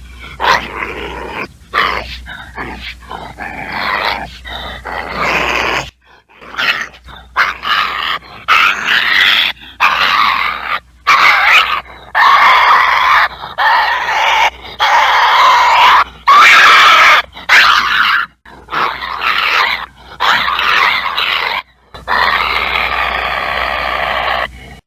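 Badger growling and hissing in a long run of short calls separated by brief gaps.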